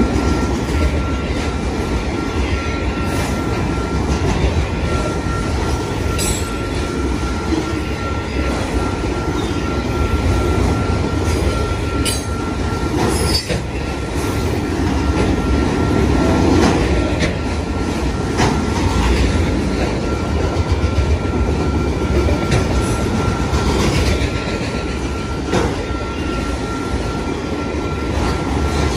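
Enclosed autorack freight cars rolling past at speed: a steady rumble and roar of steel wheels on rail, with scattered clicks and clanks. A thin steady high-pitched whine runs underneath, fading in the middle and returning near the end.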